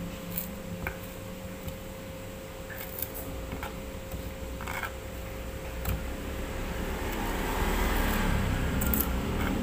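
Kitchen knife chopping celery leaves on a wooden cutting board: light, irregular taps of the blade on the wood. A low rumble swells over the last few seconds.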